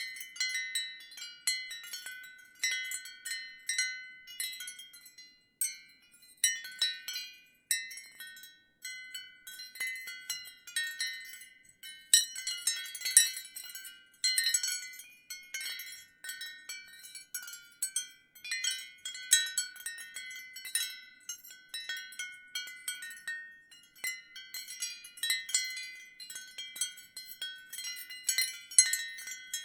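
Ceramic wind chimes clinking irregularly in the wind, many light strikes with short ringing tones, some clusters louder than others.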